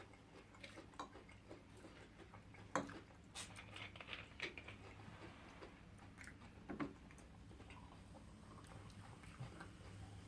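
Faint eating sounds: scattered soft clicks and smacks of chewing and handling food, loudest about three seconds in and again near seven seconds, over a low steady hum.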